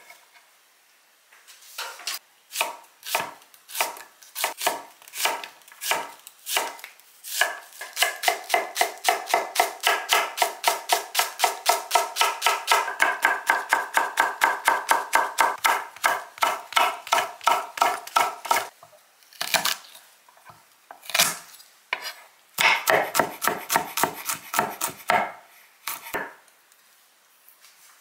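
Santoku knife chopping vegetables on an end-grain wooden cutting board. It starts with slow, separate cuts, then goes into a fast, even run of about five chops a second for some ten seconds, then shorter runs of chops with pauses between them.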